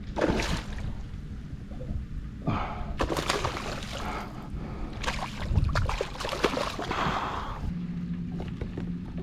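Water sloshing and splashing against a fishing kayak in irregular noisy bursts over a steady low hum.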